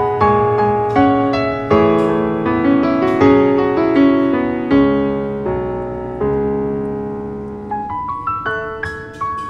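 Background piano music: gentle notes and chords struck one after another, each left to ring and fade, growing quieter near the end.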